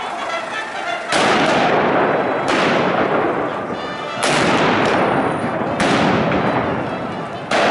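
Fireworks going off: five loud bangs at intervals of about a second and a half, each trailing off over a second or more.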